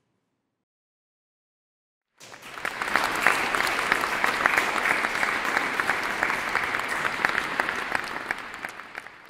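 Audience applauding, a dense patter of many hands clapping that cuts in about two seconds in, holds steady and fades away near the end.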